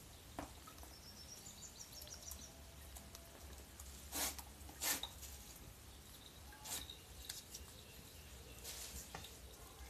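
Water splashing twice in quick succession a little past four seconds in, as a wet puppy is rinsed by hand at the edge of a plastic tub of water, with softer splashes or handling noises later. Faint high chirping about two seconds in.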